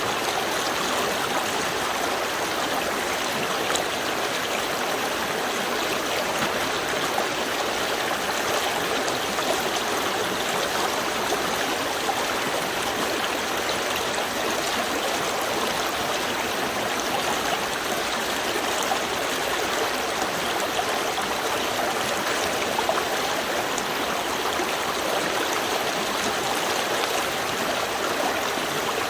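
Small river stream flowing, a steady rush and babble of water over stones.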